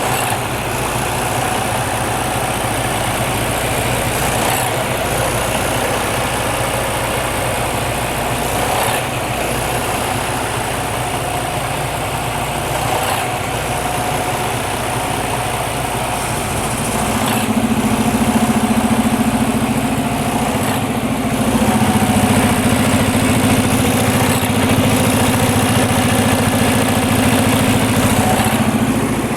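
Detroit DD15 inline-six turbo diesel idling roughly, with a slight regular hitch about every four seconds; it grows louder a little over halfway through. The rough idle is the sign of a failing fuel quantity control valve on the high-pressure fuel pump.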